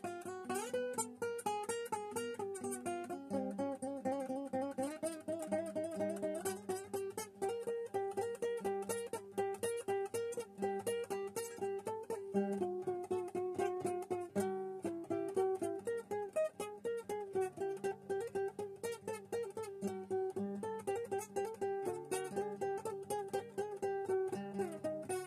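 Acoustic guitar playing a fast, busy line of plucked notes over lower bass notes, with a very short break about halfway through.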